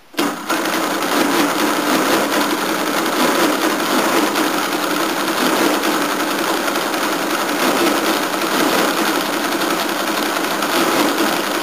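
1952 Friden SW10 electro-mechanical calculator working through a long division, its motor-driven mechanism clattering rapidly and steadily as it cycles and shifts its carriage. The clatter starts abruptly when both divide keys are pressed.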